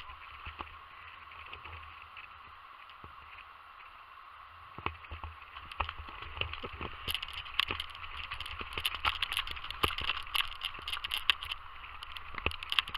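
Footsteps splashing through shallow water over wet sand, over a steady background rush. The steps start about five seconds in and turn into a quick, irregular run of splashes and knocks that gets louder toward the end.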